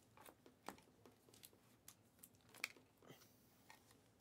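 Faint, scattered clicks and rustles of trading cards being slid and flipped through by hand, with one sharper click about two and a half seconds in.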